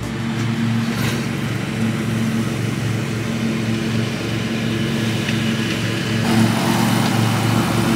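Zero-turn riding lawn mower engine running steadily while mowing, a low pulsing drone that grows brighter and slightly louder about six seconds in.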